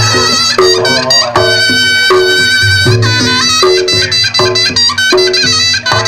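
Reog Ponorogo gamelan playing: a slompret (a shawm-like reed pipe) carries a wavering, reedy melody over struck small gongs repeating about every three-quarters of a second, with low drum and gong strokes beneath.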